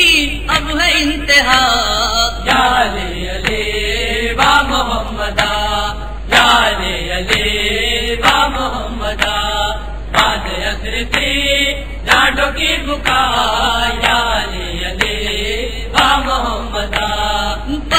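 A male noha reciter chanting an Urdu mourning lament into a microphone in long phrases, his pitch rising and falling.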